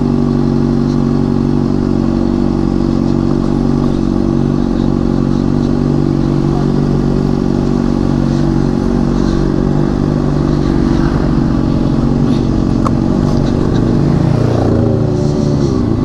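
Honda CBR600RR's inline-four engine with an aftermarket Toce exhaust, running steadily at low revs as the bike is ridden slowly. Its note wavers up and down near the end.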